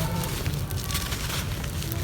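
Dry, crispy earth being crumbled by hand: a continuous gritty crackle with many small crunches and clicks.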